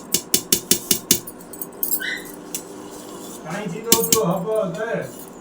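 A metal utensil knocking quickly against a cooking pot, about eight sharp clinks in the first second, followed a few seconds later by a short stretch of voice.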